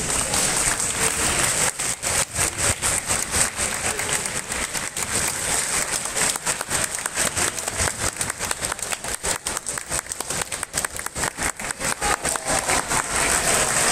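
Audience applauding, many hands clapping at once in a dense, steady run that starts suddenly and stops abruptly near the end.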